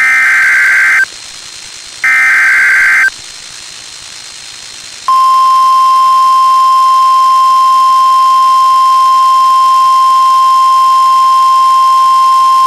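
NOAA Weather Radio alert signalling: two bursts of about a second each of screechy warbling SAME digital header data, then, about five seconds in, the long steady single-pitch 1050 Hz warning alarm tone, which sounds ahead of an alert broadcast such as a watch or warning.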